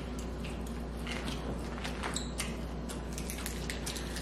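Close-miked eating of snow crab and seafood boil: wet chewing with many short, sharp mouth clicks and squishes. Near the end the snow crab shell is handled.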